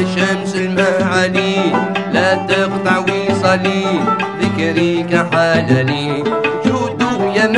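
Instrumental passage of Algerian chaabi music: a plucked long-necked lute plays a running melody over hand-drum percussion.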